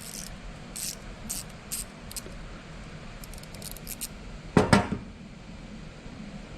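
Small metal ratchet parts and a hand tool being handled: a string of light, high metallic clicks and scrapes, then two louder metallic knocks about four and a half seconds in.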